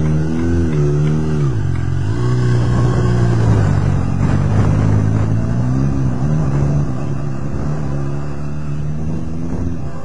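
A 2014 Honda CBR600RR's 599 cc liquid-cooled inline-four sport-bike engine is blipped up and down several times, then the bike pulls away and rides off. The engine pitch rises and falls through the gears and is a little quieter near the end.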